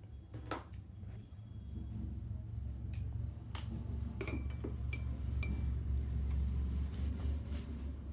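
Barber's metal tools clicking and clinking as they are picked up and handled, with a cluster of sharp ringing clinks in the middle, over a steady low hum.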